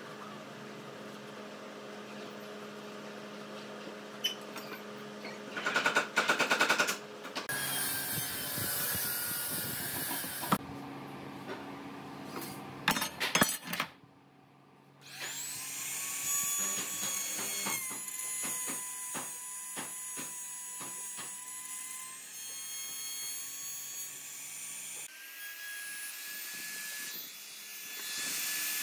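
Workshop handling noise, with loud clattering knocks about six and thirteen seconds in. After a short break, an electric trim router spins up with a rising whine and runs steadily as it cuts slots into the edge of a wooden board.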